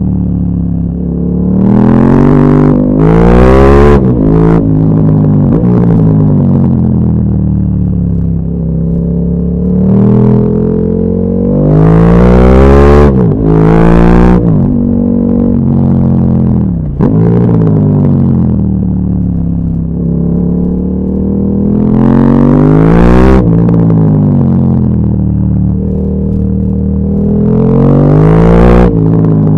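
KTM 1290 Super Duke R's 1301 cc V-twin engine accelerating hard about four times: each time the pitch climbs quickly in steps as the gears go up, then falls back in a long slow sweep as the bike slows. A loud rushing noise comes in at the top of each pull.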